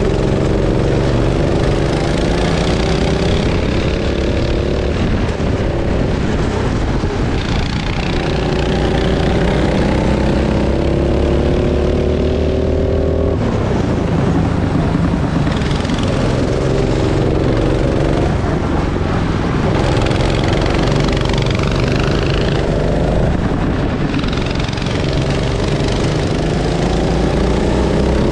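Go-kart engine running hard, its pitch climbing steadily for several seconds at a time and then dropping abruptly, about five times over, as the throttle is opened along the straights and closed for the corners.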